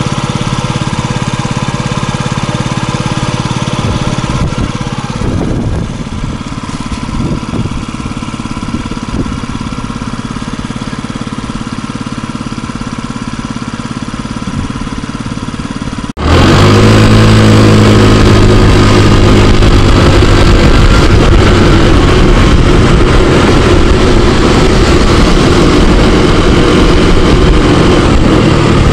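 Yamaha scooter engine idling steadily, now running right with its clogged air cleaner replaced. About halfway through it cuts to the scooter being ridden: the engine running louder under way, with road and wind noise over it.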